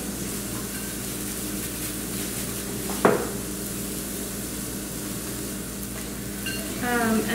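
Salmon nuggets frying in oil in a pan, a steady sizzle, with a single sharp knock about three seconds in.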